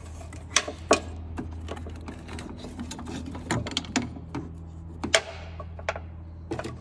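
Irregular plastic clicks and knocks as hands work a headlight bulb connector, an LED bulb and its wiring in a minivan's headlight opening, the sharpest about five seconds in, over a steady low hum.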